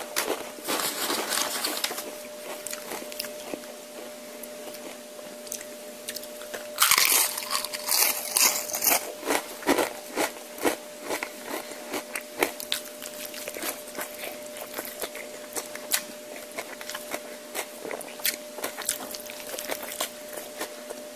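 Close-miked eating: chewing and crunching of food with many small wet mouth clicks. A louder two-second burst of crunching comes about seven seconds in. A faint steady hum sits underneath.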